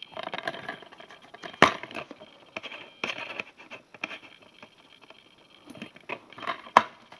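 A plastic DVD case being handled: a sharp snap about one and a half seconds in as it is opened, then rustling and light clicks, and another sharp snap near the end as the cover is swung shut.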